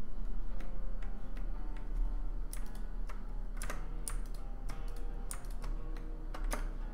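Computer keyboard keys clicking in irregular taps, sparse at first and denser in the second half, over background music with sustained notes.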